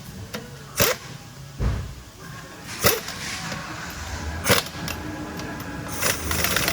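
A series of sharp, short metallic clicks or knocks, one every second or so, over a low steady hum of shop noise, with a denser hissing stretch near the end: tools working on a wheel's lug nuts and hubcaps.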